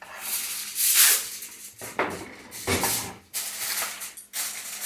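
Food sizzling in hot oil in a frying pan, a hissing noise that swells and fades about five times.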